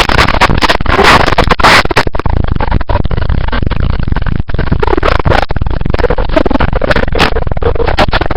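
Loud, distorted commotion of rapid knocks and clatter close to the microphone, overloading it.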